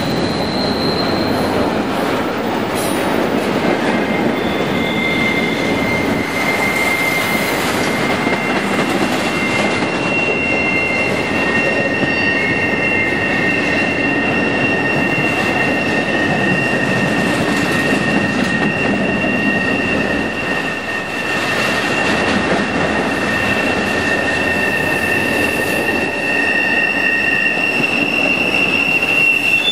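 Freight train of double-stack container cars rolling past, a steady rumble of steel wheels on rail. From about four seconds in, several high-pitched wheel squeals sound together and are held for many seconds.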